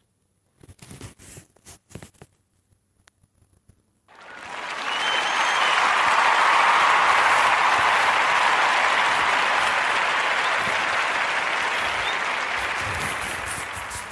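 Crowd applause that swells in about four seconds in, holds steady, then fades out near the end, with a few faint clicks before it.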